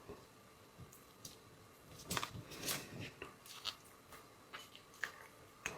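Soft, scattered crunches, clicks and squishing of someone eating seafood, biting into and working through shellfish shells, busiest about two to three seconds in.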